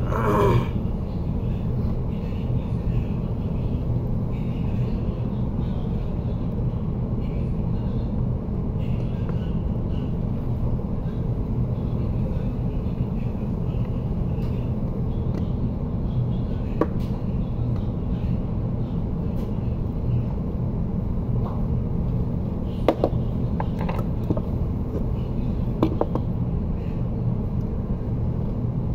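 Steady low background rumble with a constant hum, and a few faint clicks and taps in the second half.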